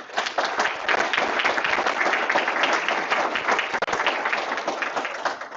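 An audience applauding: many hands clapping densely, tapering off near the end.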